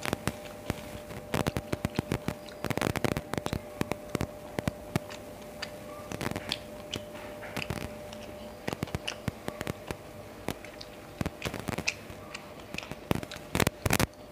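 Close-up hand-eating sounds: fingers mashing and mixing rice with fried fish on a plate, giving clusters of wet, crackling clicks, then a mouthful being chewed with small lip and mouth clicks before the mixing starts again near the end. A faint steady hum sits underneath.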